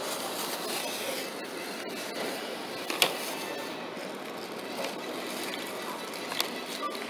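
Loaded wire shopping cart rolling across a hard store floor, its wheels and basket rattling steadily, with a sharp knock about three seconds in and lighter clicks later.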